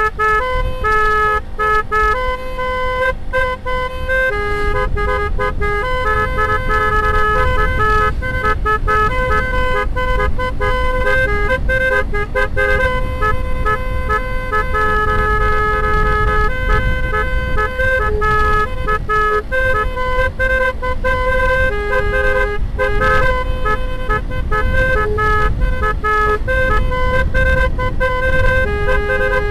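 Basuri telolet musical air horn on a bus playing a tune of held notes that step from pitch to pitch in changing chords, over a steady low rumble.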